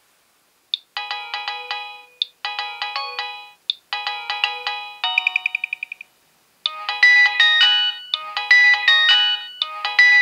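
Nokia 6820a mobile phone playing a melodic ringtone through its small speaker, with several notes sounding at once. It starts about a second in with short phrases, has a quick run of repeated high notes, pauses briefly about six seconds in, and comes back louder.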